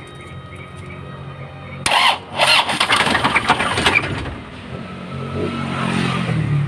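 Isuzu 4JB1 2.8 diesel engine being cranked by its starter, wired straight from the battery: a loud cranking burst starts about two seconds in, lasts about two seconds, then carries on more quietly without the engine starting.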